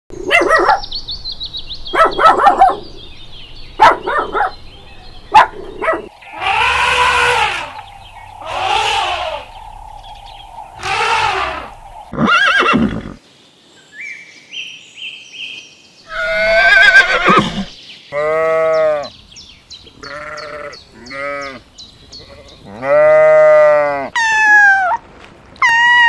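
A string of farm-animal calls one after another with short gaps: a few short sharp calls in the first few seconds, then several longer, noisier calls, then bleating. Near the end comes a cat's meowing, each call falling in pitch.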